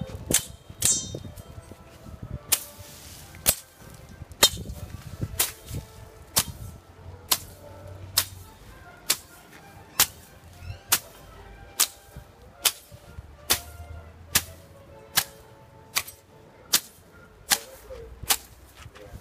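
A machete chopping grass and weeds close to the ground: sharp strikes a little faster than once a second, in an even rhythm.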